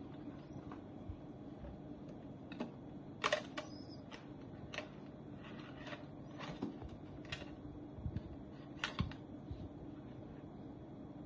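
Irregular light clicks and taps from handling a car taillight and its packaging, over a steady low hum.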